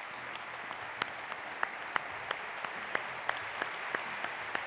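Audience applauding: a steady patter of many hands clapping, with individual sharp claps standing out.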